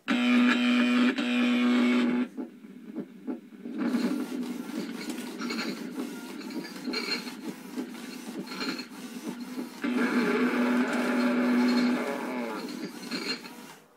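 Gemmy animated monster prop playing the instrumental part of its song through its small built-in speaker, over the whir and clicking of its motors as its head and arms move. The sound cuts off suddenly near the end.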